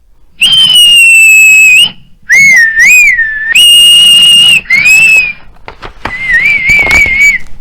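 Zookeeper's whistling as a sound effect: a series of shrill whistle blasts. There is a long steady one, two short ones that rise and fall, another long steady one and a short one, then a warbling trill near the end.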